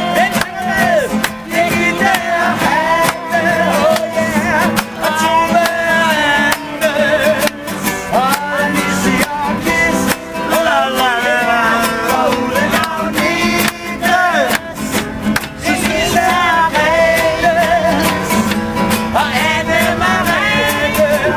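Acoustic guitar and accordion playing a tune together, with a voice singing along.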